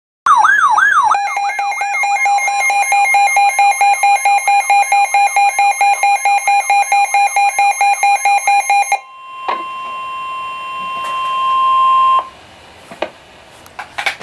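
Electronic alarm tones: a wailing siren-like sweep for about a second, then a fast-pulsing alarm tone for about eight seconds. A steady single beep-tone follows for about three seconds, ending with a few clicks.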